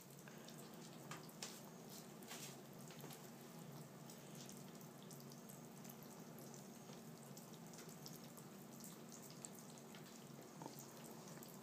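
Ferrets lapping and licking soupy food from bowls: faint, irregular wet clicks and smacks.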